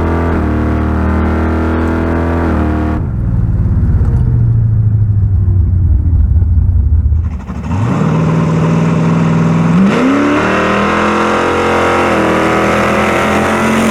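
1974 Chevy Nova's engine under hard acceleration, its pitch rising, levelling and changing as the automatic shifts, with a marked change about three seconds in and a fresh climb about eight seconds in.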